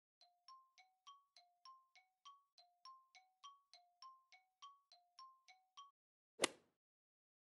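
Faint, soft bell-like chime notes on two pitches, about three or four a second for nearly six seconds, like a quiz countdown timer sound effect. One short, sharp, louder sound comes near the end.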